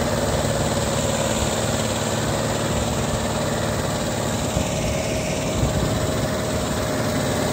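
Turbocharged Mahindra 585 tractor's diesel engine running at a steady speed.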